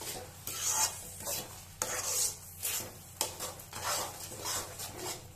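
Metal spoon stirring and scraping a thick tomato-and-chilli pickle paste in a steel kadai, in repeated strokes about two a second.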